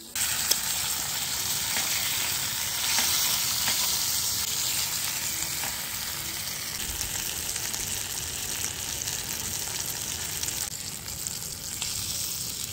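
Steelhead fillet frying in melted butter in a small pan: a steady sizzle, with a few light ticks of a fork against the pan.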